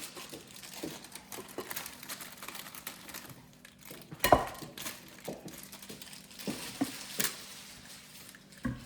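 Packaging crinkling and rustling as it is handled, with scattered clicks and a sharp knock about four seconds in.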